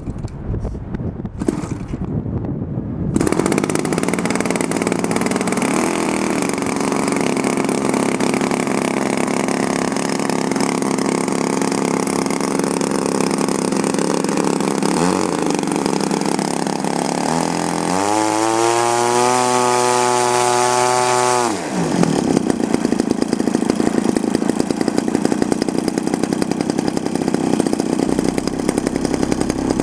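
DLE-55 single-cylinder two-stroke gas engine on a giant-scale model aerobatic plane, still in its break-in period, catching and starting about three seconds in and then running at low throttle. Midway through it is run up to high throttle for about three and a half seconds, its tone rising, then drops back suddenly to a lower, pulsing idle.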